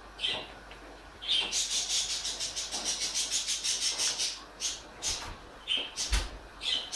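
Cat rubbing her face and head along the bristles of a pet grooming brush: a fast run of scratchy brushing strokes, about ten a second, from about a second in to about four seconds in, then a few single scrapes and a soft bump about six seconds in.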